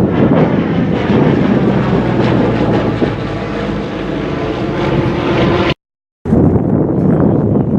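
Propeller aircraft flying over, a loud steady engine drone with a faint held tone. The sound cuts out completely for about half a second around six seconds in, then returns mixed with wind on the microphone.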